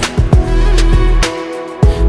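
Music: an instrumental stretch of a pop song with a drum beat and deep bass notes that slide down in pitch.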